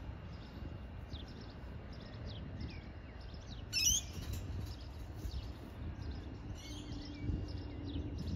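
Small birds chirping repeatedly over a steady low outdoor rumble, with one louder, shrill call about four seconds in.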